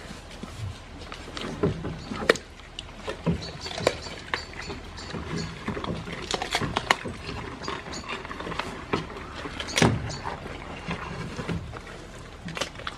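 Goats feeding at a wooden pen: irregular clicks, knocks and rustles as they eat and shift against the wooden boards, with a handful of louder knocks.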